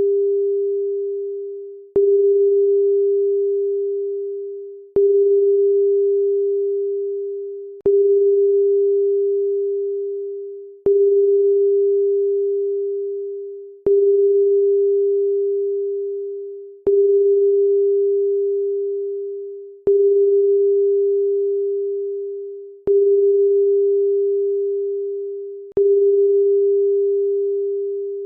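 Electronic pure tone, a low hum-like beep that sounds again about every three seconds, each time starting with a click and fading away before the next.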